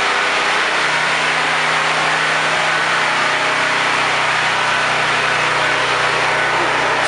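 An engine running steadily at a constant speed: a low, even hum under a loud, steady hiss.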